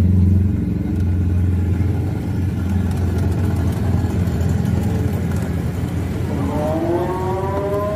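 Steady low rumble of road traffic. Near the end, a sustained pitched tone with several overtones rises in and holds.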